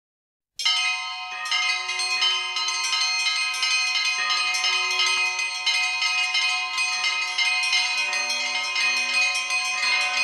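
Bells ringing, struck again and again in quick succession so that their tones overlap and ring on, starting about half a second in, with a deeper bell joining near the end.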